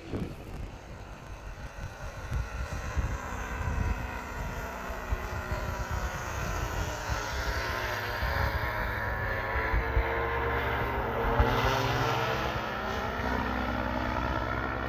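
Paramotor engine and propeller droning as the powered paraglider flies past, growing louder a little after the middle with its pitch bending as it passes. Wind buffets the microphone.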